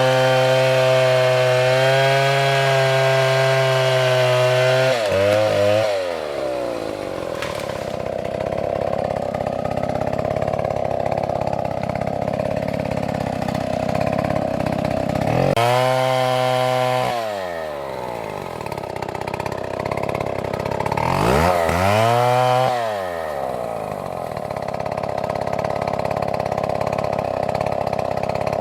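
Chainsaw engine held at high revs for about five seconds, then dropping back to a lower, steadier run. About halfway through it is revved up briefly, and again a few seconds later, each time rising and falling back in pitch.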